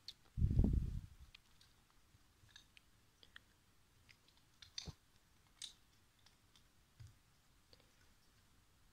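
Scattered small plastic clicks and taps of LEGO bricks being picked from a loose pile and handled, a few at a time with gaps between. A brief dull low thump about half a second in is the loudest sound.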